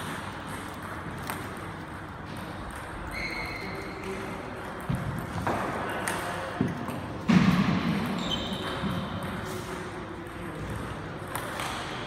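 Table tennis rally in a sports hall: the celluloid ball clicks sharply off the bats and table at uneven intervals, with brief squeaks of shoes on the wooden floor. A sudden loud sound, the loudest in the stretch, comes about seven seconds in.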